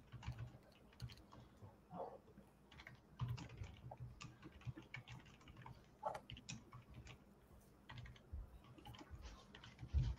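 Faint computer keyboard typing and clicking, irregular keystrokes with a few dull low knocks.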